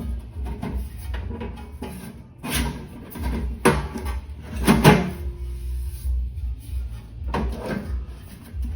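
Sheet-metal toolbox parts knocking and clanking together as one section is fitted into the other: four or so separate knocks, the loudest near the middle. Background music plays underneath.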